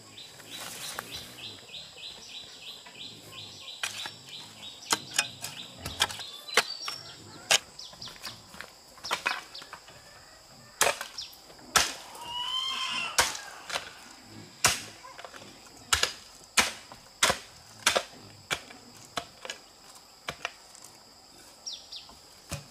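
A series of sharp knocks, scattered at first and then coming regularly about every two-thirds of a second, over a steady high-pitched drone. A rapid high trill sounds in the first few seconds, and a few short chirps about twelve seconds in.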